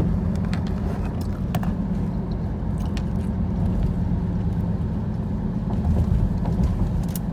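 Steady low hum of a car's engine and road noise heard from inside the cabin while driving, with a few faint ticks scattered through it.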